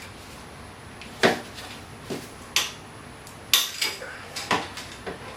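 Scattered metallic clinks and knocks of hand tools, about six sharp strikes at irregular intervals, as a ratchet and 14 mm socket are handled and fitted at the brake caliper.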